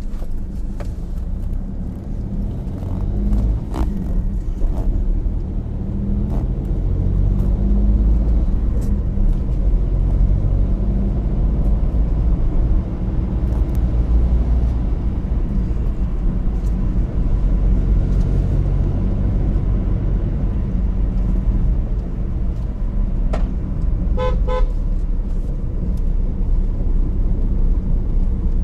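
Steady low rumble, with a short, pulsing horn toot about 24 seconds in.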